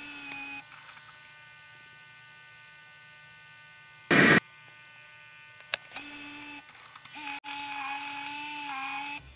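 Electronic buzzing hum made of several steady tones that cut out and come back, broken by a short, loud burst of static about four seconds in and a sharp click a little later.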